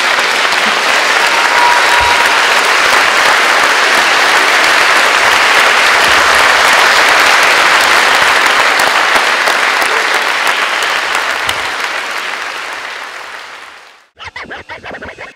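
Concert audience applauding steadily, dying away about twelve seconds in and stopping about two seconds later, followed by a second or so of a different, pulsing sound.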